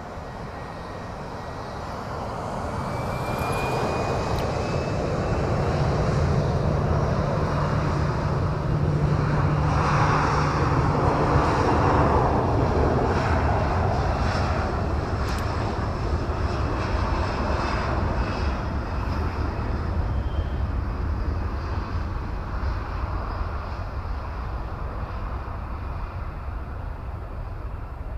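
Boeing 737 airliner's jet engines spooling up for takeoff, with a rising whine over the first few seconds. The engines then give a loud, steady roar as the plane accelerates down the runway, and the roar slowly fades in the last half as it departs.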